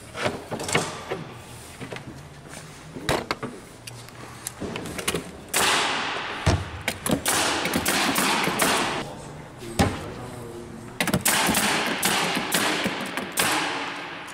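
Spotnail X1C1008 pneumatic cabinet assembly tool firing fasteners into a cabinet face-frame joint: a string of sharp, irregularly spaced shots. Twice, a couple of seconds of air hiss follows a shot and fades away.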